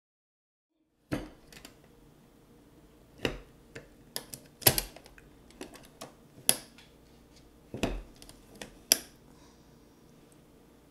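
Sharp clicks and knocks from a metal springform pan being handled as its latch is worked to release the ring. There are about seven louder clicks at uneven intervals, starting after a second of silence.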